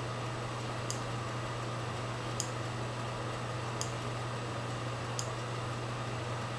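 Homemade rotary-displacer Stirling engine running slowly on its own, a faint sharp tick about every second and a half over a steady low hum; it is barely self-running, not very well.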